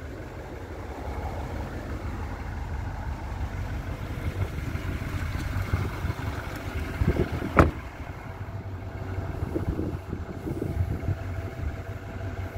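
Chevrolet Silverado 3500's 6.6 L Duramax V8 turbo-diesel idling steadily, with a single sharp knock about seven and a half seconds in as the rear door is shut.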